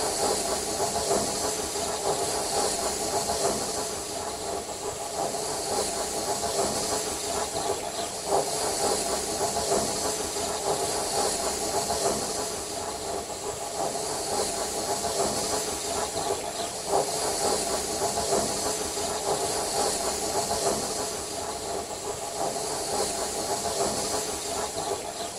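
Steam locomotive standing still and hissing steam steadily, with a faint tick twice.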